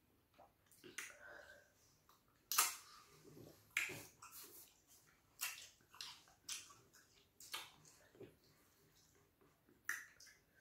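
Eating sounds: irregular wet smacks and clicks, about one a second, from mouths chewing fufu with ogbono soup and fingers working the sticky food by hand.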